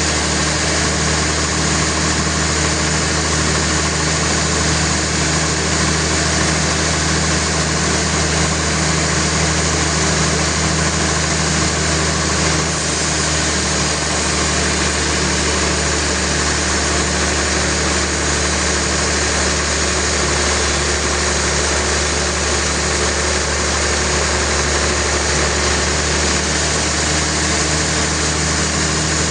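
Sawmill machinery running with a steady, constant motor hum and no change in load.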